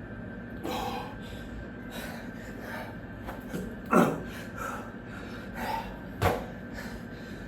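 A man breathing hard and gasping during burpees, with a few sharp, loud exhales; the loudest comes about four seconds in, and another comes just past six seconds.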